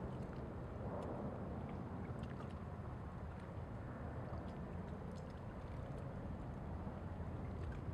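Steady low rumble of distant city and harbour ambience carried across the bay, with faint scattered ticks.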